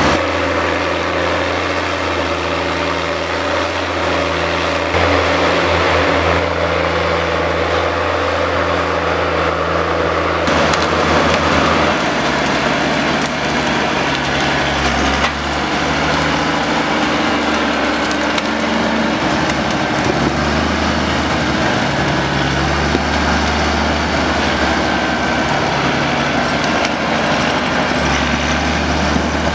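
John Deere 1110D forwarder's six-cylinder diesel engine running under load as the machine climbs, its pitch shifting several times, with a thin high whine over the first twelve seconds.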